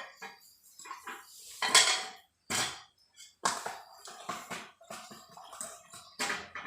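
Metal parts and hand tools clinking and knocking together: a series of sharp, irregular clanks, as a tractor hydraulic pump is worked on by hand.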